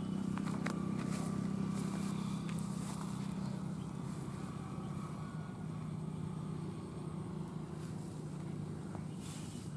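John Deere tractor's diesel engine running steadily; its pitch drops a little about halfway through.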